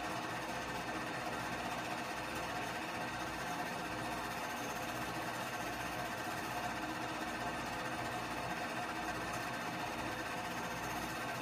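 Keystone K-502 8mm movie projector running steadily, its motor and film transport making a continuous mechanical sound, picked up by a phone's microphone.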